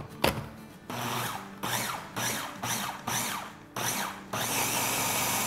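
Electric food chopper's motor whirring in short pulses, about six bursts, then running without a break from about four and a half seconds in, as it blends flour, cornflour and water into a smooth, lump-free batter. A couple of clicks at the start.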